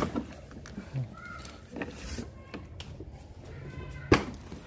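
Cardboard box flaps being pulled open and handled, a series of scrapes and light knocks, with one sharp knock about four seconds in.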